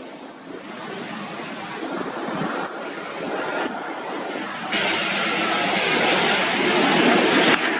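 Airliner engines, a broad rushing noise that grows steadily louder as the aircraft comes close, with a faint falling whine in the second half.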